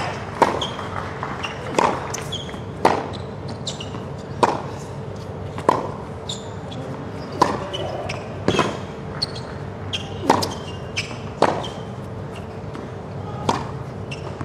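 Tennis balls struck by racquets in a long rally on a hard court: sharp hits about every second and a half, with softer knocks of the ball bouncing in between.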